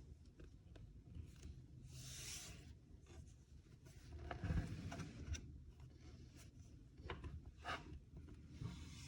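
Faint, scattered rubbing and hissing with a few light clicks and a dull knock about halfway, as of objects being handled on a surface.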